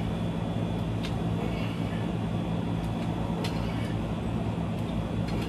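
A steady low mechanical hum over a constant rumble, with a few faint ticks about a second, three and a half seconds and five seconds in.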